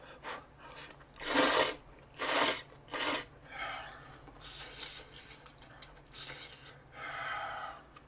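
Eating sounds: three loud, quick slurps of udon noodles and broth from a hot pot, about a second apart, then softer chewing.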